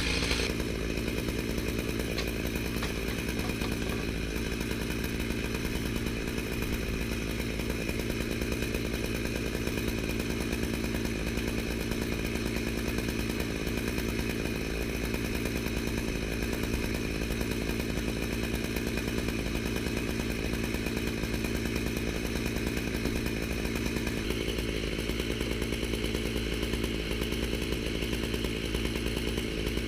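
Chainsaw mounted on an Alaskan mill running steadily under load, ripping a long slab cut through a deodar cedar trunk. Its pitch holds even, with a slight change in tone a few seconds before the end.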